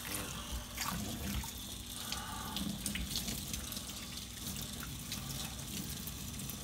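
Water running steadily from a kitchen sink's pull-out sprayer, splashing onto a wet dog's coat and into a stainless steel sink.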